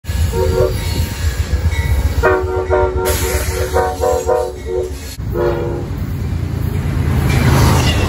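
Amtrak GE Genesis diesel locomotive's multi-note horn: one short blast, then a rapid string of about eight short blasts and a final one, played as a horn show. The locomotive's low engine rumble and the passing train's wheel and rail noise run underneath.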